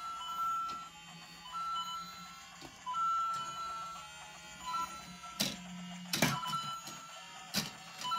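LEGO Super Mario interactive figure playing electronic beeps and short tune-like jingles through its small speaker. A few sharp plastic clacks come in the second half as the figures are moved on the bricks.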